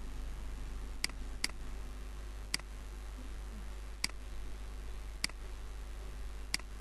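Six sharp computer-mouse button clicks at irregular intervals, over a steady low hum.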